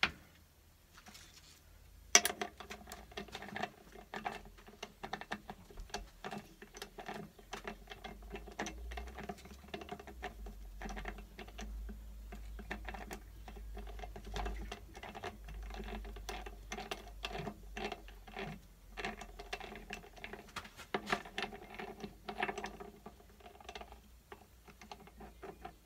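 Metal clicking and rattling of a Myford lathe's three-jaw chuck being worked with a chuck key while a pin is set up in it: one sharp knock about two seconds in, then many irregular light clicks and taps.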